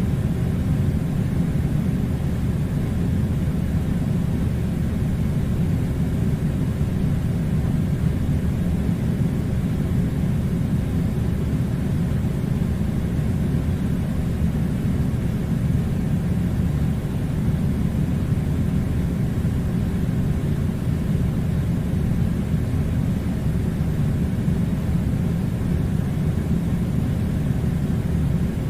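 Air conditioner running: a steady low rumble with a light hiss over it, unchanging throughout.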